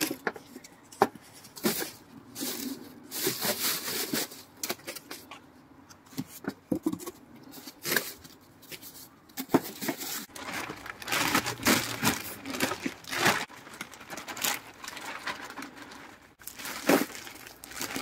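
Flattened cardboard sheets being handled and pressed down onto a bed of conifer branches: irregular rustling, crinkling and scraping with short sharp knocks.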